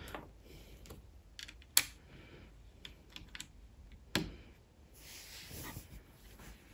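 Scattered light clicks of plastic building bricks being handled and pressed onto a brick-built model car, the sharpest about two seconds in, followed by a soft rustle near the end.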